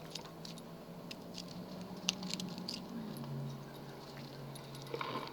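Lock pick and tension wrench working a pin tumbler lock: faint scattered metallic clicks and scrapes, the sharpest about two seconds in.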